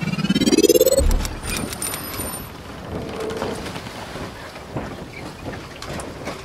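Channel logo intro sound effect: a rising sweep that ends in a deep boom about a second in, a brief high shimmering chime, then a steady rushing noise with faint crackles.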